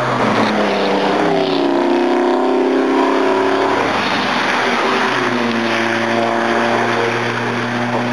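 Racing car engines running hard on the circuit: the pitch climbs about a second in, holds, drops about four seconds in, then holds steady again.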